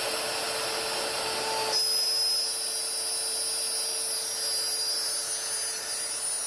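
CNC router spindle running with a steady whine while cutting a frame; the broad cutting noise drops off sharply about two seconds in as the spindle keeps whining.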